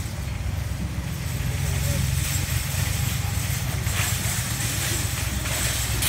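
Steady low rumble of outdoor background noise, with faint voices in the distance.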